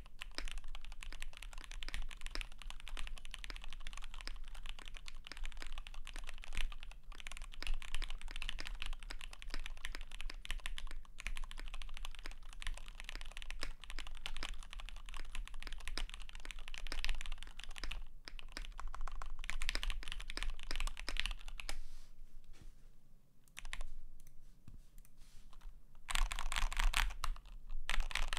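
Continuous fast typing on a KBD75 v3.1 custom mechanical keyboard fitted with lubed Gateron X linear switches, a polycarbonate plate, greased stabilisers and PBT keycaps: a dense run of keystroke clicks. The typing grows softer for a few seconds past the two-thirds mark, then picks up again near the end.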